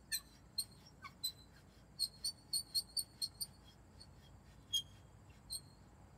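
A series of short, high-pitched chirps or squeaks, about a dozen at uneven intervals, with a quick run of them in the middle, over a faint steady high-pitched drone.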